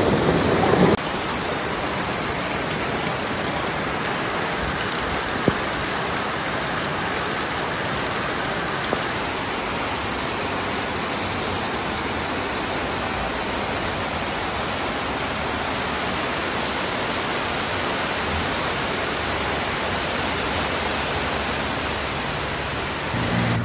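Steady rush of heavy rain and muddy floodwater torrenting down a street, with one short click about five seconds in.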